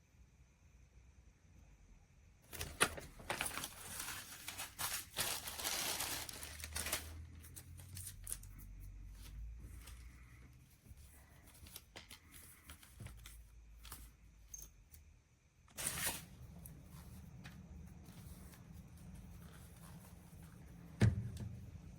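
Handling noises: bouts of rustling and crinkling with scattered clicks, and a sharp knock near the end.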